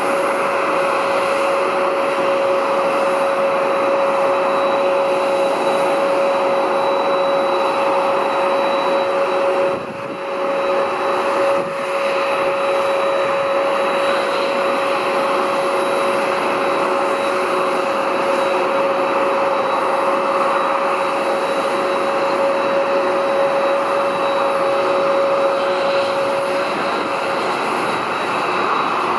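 Boeing 767-300ER's jet engines running with a steady whine over a broad rumble, dipping briefly about ten seconds in; the main whine stops near the end.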